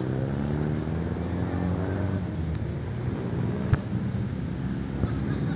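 Road traffic: a motor vehicle's engine hum drifting slowly in pitch over steady traffic noise, with a single sharp click about three and a half seconds in.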